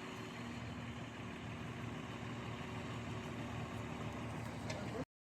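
An engine idling with a steady low hum and rumble, cutting off abruptly to silence about five seconds in.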